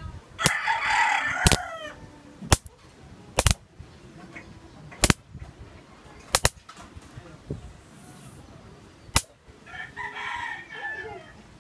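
Sharp snaps of high-voltage sparks jumping between the two output wires of a home-built 3.7 V to 2000 V inverter, about seven irregular cracks, roughly one a second at first and sparser later. A rooster crows twice in the background, near the start and again near the end.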